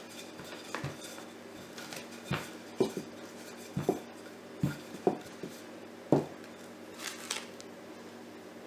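Wooden rolling pin working dough on a silicone baking mat over a wooden table: a series of soft, irregular knocks as the pin is rolled, pressed and set down, with a brief scrape near the end.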